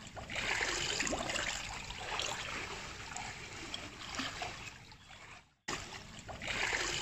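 Swimming-pool water splashing and sloshing as a toddler is swum through it, held by an adult. There is a brief break about five and a half seconds in.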